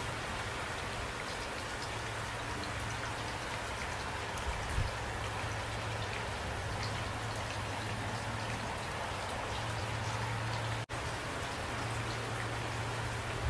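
Steady rain falling, with close drops ticking on surfaces. A soft thump comes about five seconds in, and the sound cuts out for an instant near the end.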